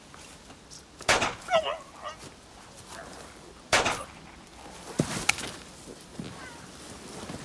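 Two sudden loud bangs about two and a half seconds apart, the first followed by a man's brief wavering cry, then two sharp knocks and rustling as men in soldier's kit with a rifle drop to the ground in a trench of dirt and leaves.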